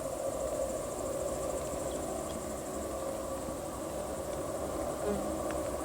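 Crickets chirping in a steady, rapid high-pitched chorus, over a lower steady hum.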